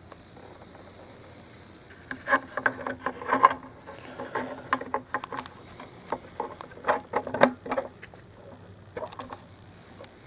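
Irregular clicks, knocks and rattles of the carpet shampooer's plastic tank and cap being handled, starting about two seconds in and dying away near the end.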